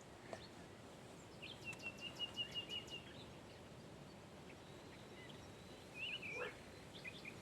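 Small birds singing faintly over quiet outdoor background: a quick run of repeated high notes about two seconds in, and a short warbled phrase about six seconds in.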